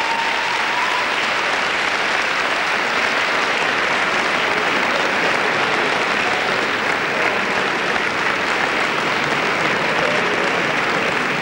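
Concert hall audience applauding steadily at the end of a live song, with the last held note of the music dying away about a second in.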